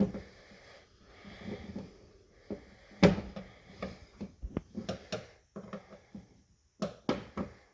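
Irregular clicks, knocks and rattles of hands working a car's outside door handle assembly and its clips inside the door, with a sharp knock about three seconds in.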